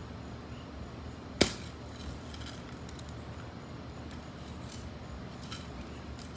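A long pole knocks once, sharply, about a second and a half in, followed later by a few faint clicks.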